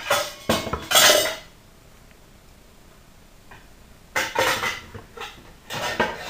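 Metal pots and saucepans clattering and knocking together as they are rummaged through: a burst of clatter at the start, a quiet gap, then more clanking from about four seconds in.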